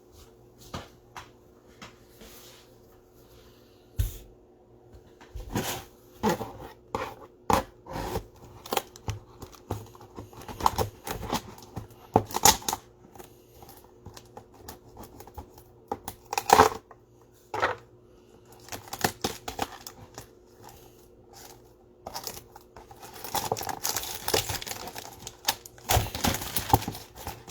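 Steak knife cutting and tearing the plastic shrink wrap off trading-card boxes: scattered scrapes and taps, then denser crinkling and tearing of the plastic near the end.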